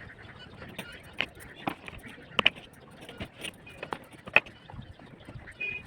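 Irregular sharp knocks and clicks from hand work on the beam's reinforcement and formwork, the two loudest about two and a half and four and a half seconds in.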